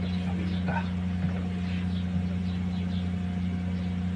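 Steady low mechanical hum of a running motor, with faint scattered light clicks over it.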